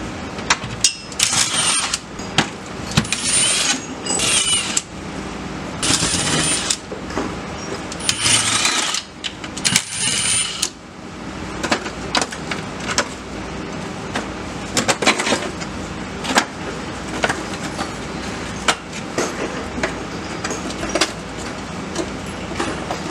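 Tools taking off the exhaust heat shield nuts under the car: several short mechanical bursts about a second long in the first half, with metal clicks and clinks throughout.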